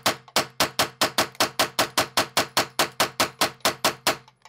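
Rapid semi-automatic fire from a Ruger PC Carbine fitted with a muzzle brake: an even string of shots at about five a second, stopping shortly before the end.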